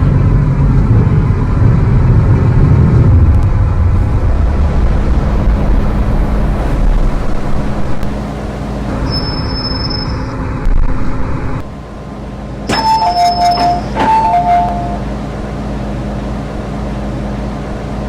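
MTR M-Train electric multiple unit drawing into a station, its traction motor whine falling in pitch as it brakes, before settling to a steady hum about twelve seconds in. Then a two-note chime, high then low, sounds twice.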